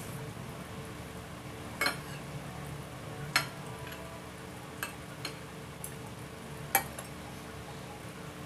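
Metal fork and spoon clinking and scraping against a plate: about six sharp clinks, the loudest about two, three and a half and seven seconds in. A steady low hum runs underneath.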